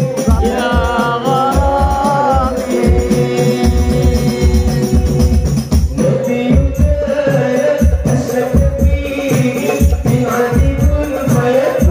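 A man singing a sholawat (Islamic devotional song) into a microphone, amplified, over a steady drum beat.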